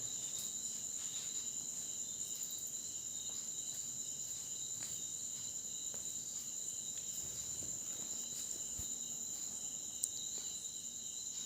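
A steady, high-pitched chorus of crickets, with a single sharp click near the end.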